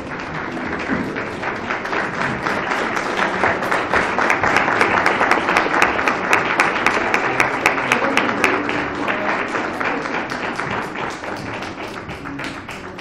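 A small audience applauding with many hands clapping, building over the first few seconds and tapering off toward the end.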